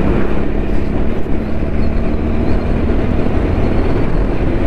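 Motorcycle riding noise: wind rushing over the mic with the TVS Apache 200's single-cylinder engine running underneath, the bike slowing from about 55 to 30 km/h.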